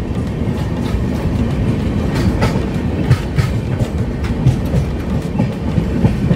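Express passenger train running at speed: a steady rumble of the coach's wheels on the track, with irregular clacks over rail joints. The clacks come thickest between about two and three and a half seconds in.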